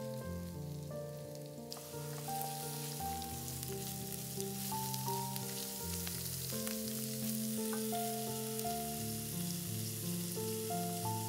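Shredded cabbage and carrots sizzling in oil in a frying pan, the sizzle growing louder about two seconds in as the vegetables are stirred with a wooden spatula. Soft background music with long held notes plays underneath.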